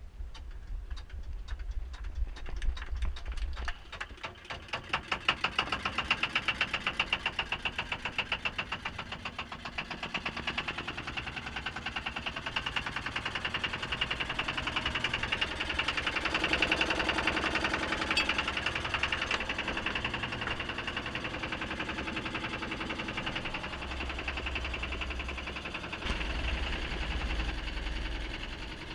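Small fishing boat's engine starting up: a few separate knocks at first, then from about five seconds in it runs with a steady, rapid knocking beat.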